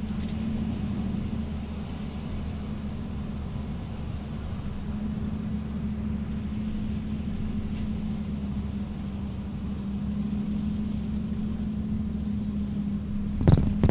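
A vehicle's engine and tyre noise heard from inside the cabin while driving on soft beach sand: a steady low drone with a constant hum. A sudden thump comes near the end.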